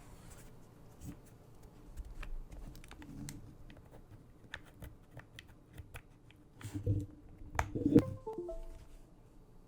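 Mechanical keyboard keystrokes from a KBDfans D65 polycarbonate gasket-mount board with lubed and filmed Durock POM switches and a PE foam mod. Keys are pressed one at a time at an irregular pace, with a louder cluster of presses and a brief ringing tone about eight seconds in.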